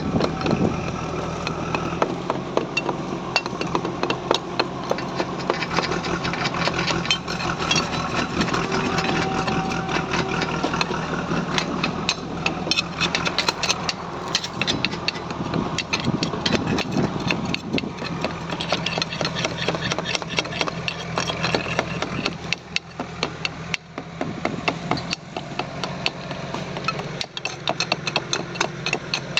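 A small engine running steadily, with frequent metallic clicks and knocks over it.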